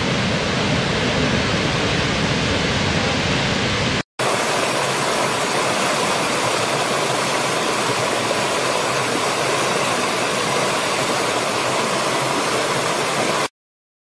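Steady, heavy rush of a large waterfall, deep and full. It cuts out about four seconds in, and a brighter, lighter rush of a shallow stream tumbling over rocks takes over. That stops suddenly just before the end.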